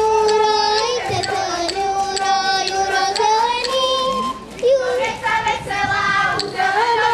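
A group of girls singing a Slovak folk song together in unison, the melody moving in held notes.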